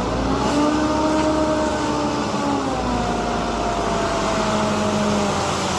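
A motor or engine running steadily over a hiss, its hum slowly drifting down in pitch.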